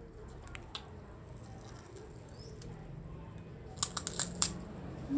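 Several sharp crunches of a shrimp cracker (krupuk udang) being bitten, clustered about four seconds in, over a faint low hum.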